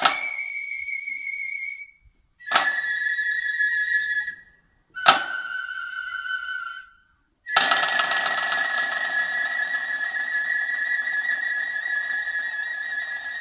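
Tambourcorps flutes and drums playing four long held notes, each struck in with a drum beat and cut off with a short silence between. The first three notes step down in pitch, and the last is held for about six seconds.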